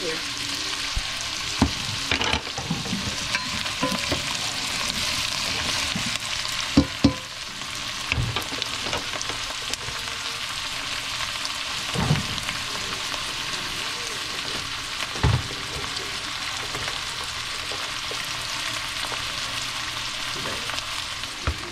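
Chopped onion and green bell pepper sizzling steadily in bacon grease in an enamel pot on the stove, with a few sharp knocks now and then.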